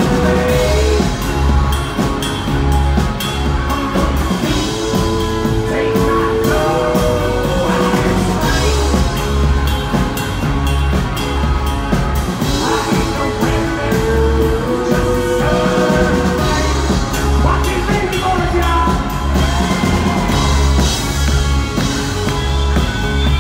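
Live rock band playing: strummed acoustic guitar and electric guitar over a steady pulsing bass line and drum kit.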